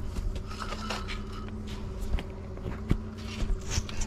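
Boat's outboard motor idling steadily, with scattered clicks and knocks on the boat.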